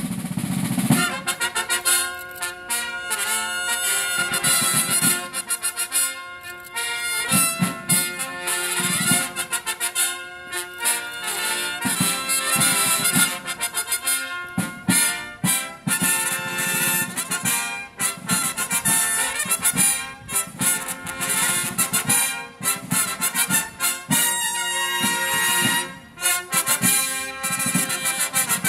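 A herald trumpet ensemble playing an antiphonal brass fanfare, with two choirs of long fanfare trumpets answering each other, over field-drum strokes. The music comes in loudly with the first note right at the start and carries on throughout.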